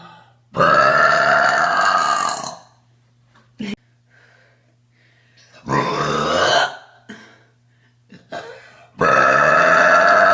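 A woman burps loudly three times: a long drawn-out belch of about two seconds, a shorter one about five seconds in, and another long one starting near the end. Faint short clicks fall in the gaps between them.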